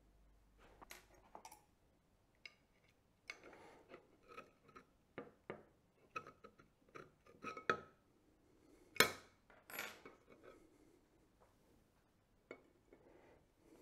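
Scattered light clicks, taps and clinks of small metal and plastic parts being handled and set down on a wooden bench as a ZWO electronic filter wheel is dismantled and its filter carousel lifted out of the housing. The loudest knock comes about nine seconds in, with another about a second later.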